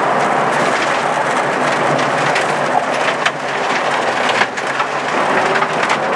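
Audi 80 quattro rally car at speed on gravel, heard from inside the cabin: a dense, steady rush of tyres on loose gravel and stones spraying against the underbody and wheel arches over the engine, with several sharp stone hits in the middle.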